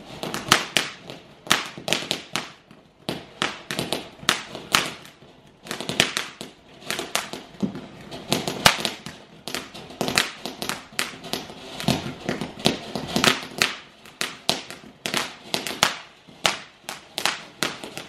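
Ground fountain firework spraying sparks with irregular sharp crackling pops, a few a second, going on without a break.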